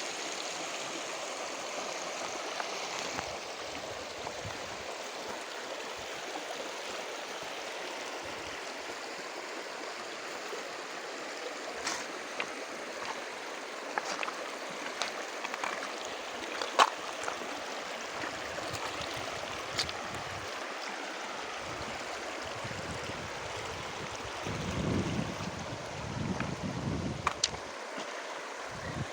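A river running steadily, a continuous rush of water, with a few sharp splashes or clicks scattered through the middle and later part. Low rumbling gusts come in briefly near the end.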